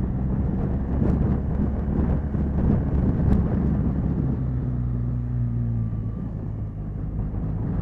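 Motorcycle engine running steadily while riding, mixed with wind noise on the microphone.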